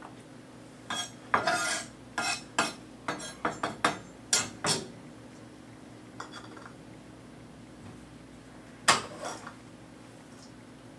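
Chef's knife chopping roasted red peppers on a plastic cutting board: a run of quick, sharp knocks over a few seconds. Later, a few faint taps and one louder knock.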